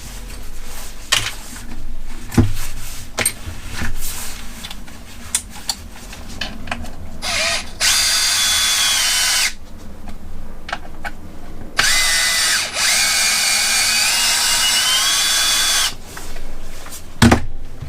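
Power drill-driver with a hex bit running in two bursts, about two and four seconds long, its whine stepping up in pitch as the trigger is squeezed harder, backing out thread-locked screws. Before the bursts there are scattered small clicks of tools and parts being handled.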